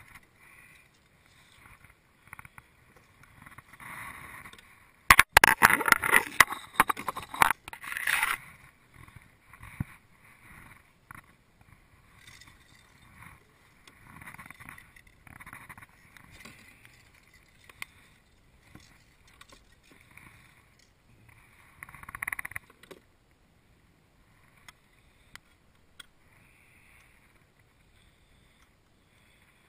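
A hooked fish being landed into a plastic kayak: a loud burst of splashing and thrashing about five seconds in, lasting about three seconds, then scattered knocks and rustling as it is handled, with another short burst a little after twenty seconds.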